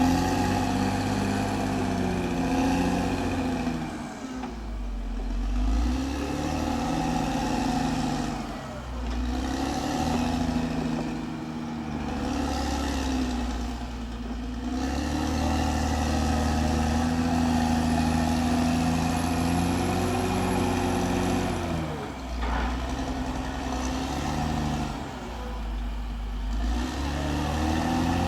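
Caterpillar D6R bulldozer's diesel engine working under load. Its pitch sags and picks back up about six times as the blade takes and sheds load, with a deeper rumble at each dip.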